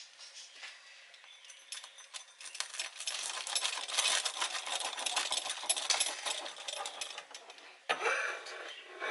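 Rapid crisp crackling and scraping of a knife cutting through a freshly grilled, crisp tortilla quesadilla. It builds up about two seconds in and eases off near the end.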